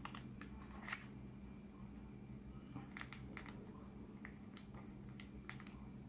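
Faint plastic clicks of air-conditioner remote control buttons being pressed, one about a second in and a quick run of several between about three and five and a half seconds, over a steady low hum.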